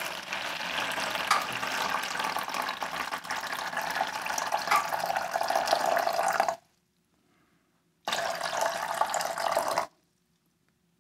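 Water poured in a stream from a plastic container into a plastic tub, splashing as it fills. One long pour of about six and a half seconds stops abruptly, and after a short pause a second, shorter pour tops it up toward a measured amount of about 700 ml.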